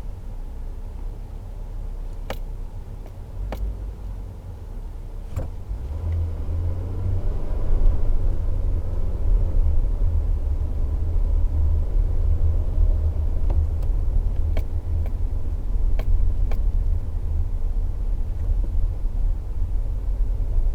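Toyota Tacoma pickup driving, heard from inside the cab near the pedals: a steady low engine and road rumble that swells as the truck accelerates about six to eight seconds in. A few sharp clicks or knocks come through at scattered moments.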